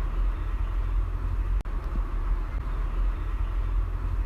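Steady low rumble with hiss from the recording's background noise, briefly cutting out about one and a half seconds in.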